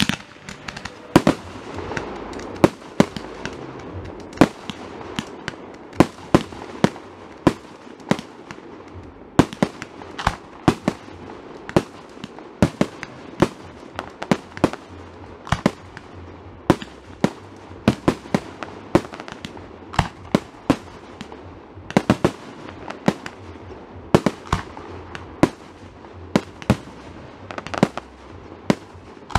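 Fireworks display: aerial shells bursting in a fast, irregular string of sharp bangs, about two a second, with a steady noise between them.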